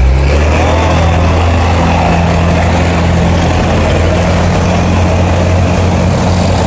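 Diesel engines of steel river cargo barges running close by, a loud, steady deep engine hum that strengthens right at the start, over the wash of water.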